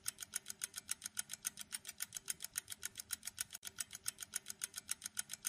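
Countdown timer sound effect: fast, even, clock-like ticking, about six or seven ticks a second, marking the seconds left to answer.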